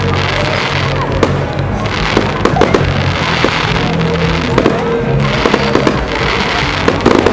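Fireworks display: frequent sharp bangs and crackling from bursting shells, with music playing loudly underneath.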